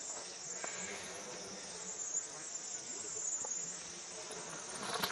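Steady high-pitched chorus of insects droning without a break, with a few faint ticks.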